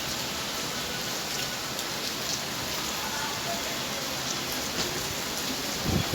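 Heavy rain falling steadily, an even hiss of rain on surfaces with scattered drop taps, and a few louder low drip thumps near the end.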